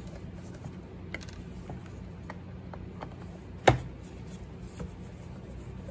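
Screwdriver working screws inside a Bissell ProHeat 2X carpet cleaner's plastic base: scattered small clicks and scrapes, with one sharp clack a little past the middle.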